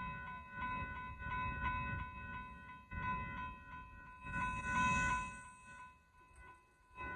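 Railroad grade-crossing warning bell ringing rapidly, about three to four strokes a second, over a low rumble.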